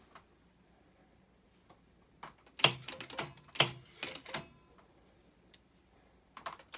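Transport keys of an Otari MX-5050 reel-to-reel tape recorder being pressed: a cluster of sharp mechanical clicks and clunks about two and a half seconds in as the tape starts moving to record, with a couple more clicks near the end.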